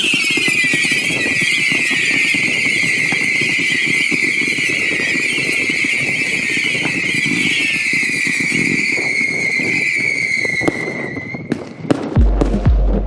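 A whistling firework giving one long, loud whistle of about eleven seconds, its pitch starting high, dropping quickly and then holding steady before it cuts off, with crackling under it. Near the end a steady low thumping beat of about two a second begins.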